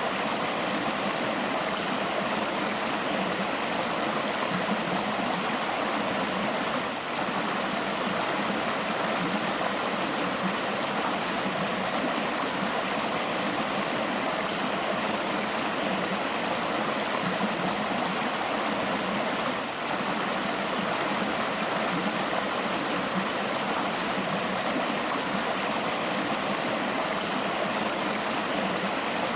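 River water flowing steadily over rocks in a continuous rushing, trickling sound, with two brief dips in level.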